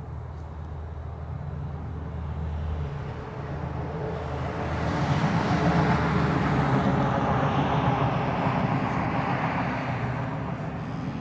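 A motor vehicle going past, its noise swelling over a few seconds, loudest about halfway through, then fading away.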